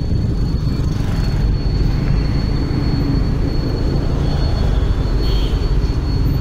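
Motorcycle on the move, heard from the rider's seat: a steady low rumble of engine and road noise with wind on the microphone. A thin, steady high-pitched whine runs through it.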